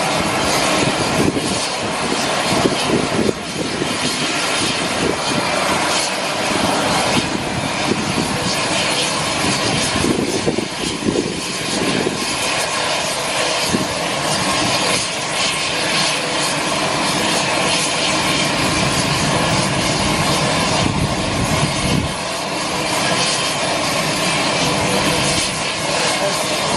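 Turbines of a parked Lockheed C-130 Hercules cargo aircraft running on the ground: a loud, steady whine over a dense rumble that does not let up.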